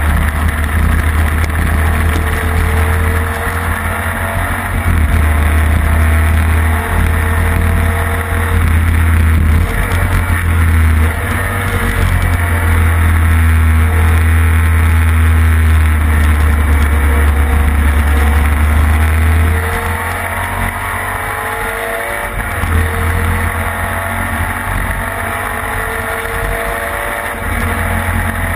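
Onboard sound of a classic racing sidecar outfit at full speed: the engine running hard under a heavy wind rumble on the microphone, its note rising and falling through the gears. About twenty seconds in it eases off for a few seconds, then picks up and climbs again.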